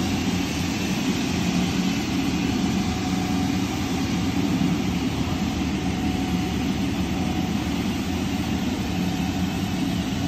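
Steady low drone of an engine running, with a hiss above it.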